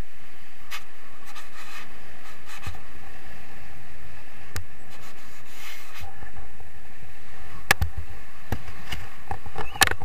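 Steady wind rushing over the microphone of a tandem paraglider gliding in to land. Near the end come a cluster of sharp knocks and scrapes as the harness touches down on the grass.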